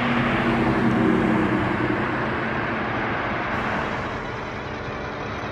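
A car driving past on the road: engine hum and tyre noise that fade after about two seconds, then steady traffic noise.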